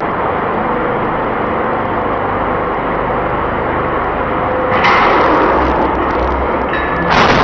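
Loud, steady industrial machinery noise: a dense hiss over a low rumble, which gets louder about five seconds in and again just before the end.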